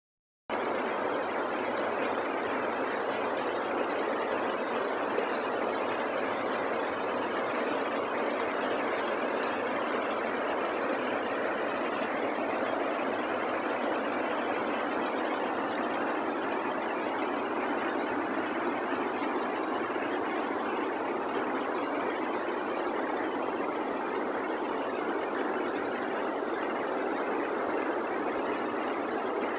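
Waterfall rushing: a steady, unbroken noise of falling water with a constant high hiss over it.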